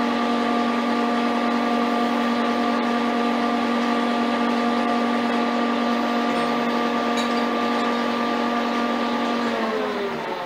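Metal lathe running with a steady whine from its motor and gearing, then switched off near the end, its tone sliding down in pitch as it spins down.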